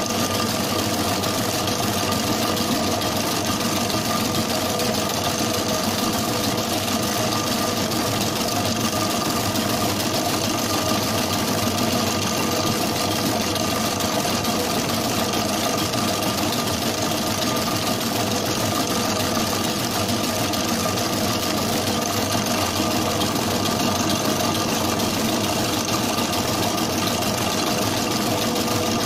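Commercial planetary mixing machine running at a steady speed, its motor and gearing giving a constant hum with a few steady tones as the whisk beats sponge cake batter in a steel bowl.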